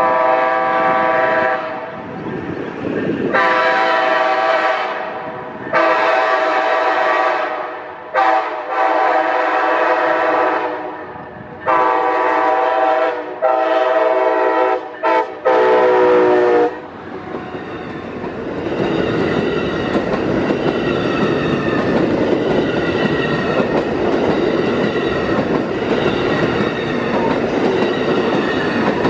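Amtrak ALC-42 Charger locomotive sounding its multi-note air horn in a series of blasts, mostly long with a few short ones, as it approaches a road grade crossing. At about 17 seconds in the horn stops, and the bi-level Superliner passenger cars roll past with steady wheel-on-rail noise and clickety-clack.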